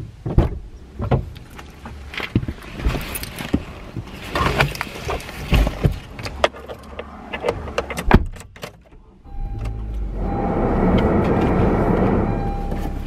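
Clicks and knocks of handling inside a parked car, then about nine seconds in a steady low rumble and rushing whirr comes on and holds: the car's engine and ventilation fan running.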